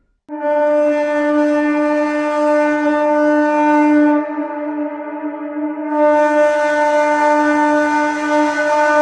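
Train horn blowing one long, steady note that starts about a third of a second in. It eases off for a couple of seconds around the middle, then comes back full and carries on.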